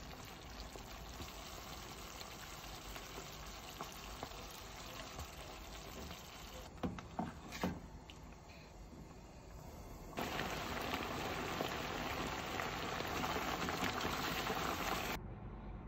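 Thick curry sauce simmering and sizzling in a frying pan, with a few knocks of a utensil against the pan about seven seconds in. About ten seconds in a louder stretch of sizzling bubbles starts while a wooden spatula stirs the sauce, and it cuts off suddenly near the end.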